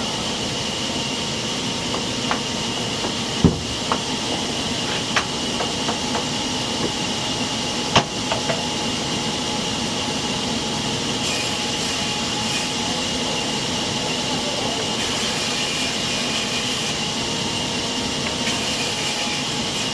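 Sawmill machinery running steadily, a saw's constant high whine over a wide noise. A few sharp wooden knocks sound, the loudest about three and a half and eight seconds in.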